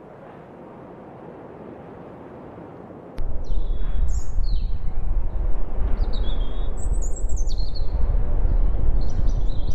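Birds chirping in short, gliding calls over a loud, deep, steady rumble that cuts in suddenly about three seconds in, after a soft rising hiss.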